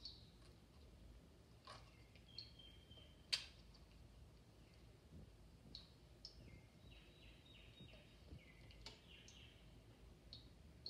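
Faint, short high chirps and soft clicks from a wet parakeet bathing in a shallow glass bowl of water, with one sharper click a few seconds in.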